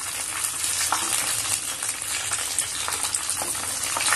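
Breadcrumb-coated chicken leg pieces deep-frying in hot oil, a steady bubbling sizzle full of small pops and crackles, while a slotted metal spatula turns them over in the oil.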